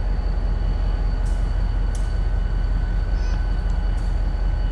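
A standing passenger train's machinery running: a steady low rumble with a thin constant whine over it. A few faint crunches of footsteps on gravel.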